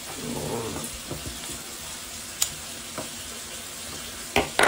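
Steady hiss of recording noise with a brief low mumble at the start, a single sharp click about halfway, and two sharp knocks close together near the end.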